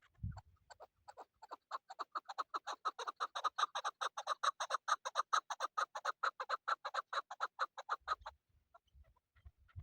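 Chukar partridge calling: a rapid run of clucking notes, about six a second, that swells in loudness and then stops abruptly near the end.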